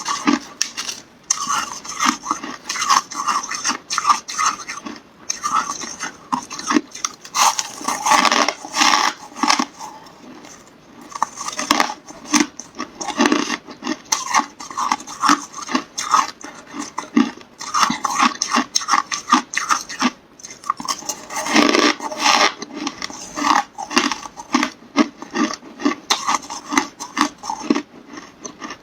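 Carbonated ice being bitten and chewed: many sharp cracks and crunches in quick succession, with a short lull about ten seconds in.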